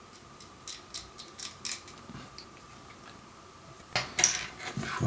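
Hobby knife scraping sprue nubs off a plastic model-kit part: about six quick, short scrapes in the first two seconds, then a few fainter ones. Near the end come louder knocks and clatter of things being handled on the cutting mat.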